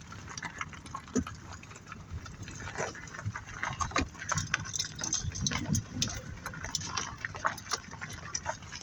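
Car rolling slowly over rough ground, heard from inside, with a low rumble and scattered crackling ticks.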